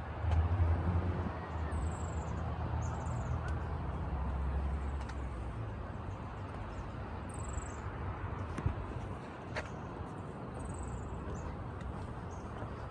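A small bird gives short, high, falling chirps again and again over a steady outdoor hiss, while a vehicle's low engine hum fades away over the first half.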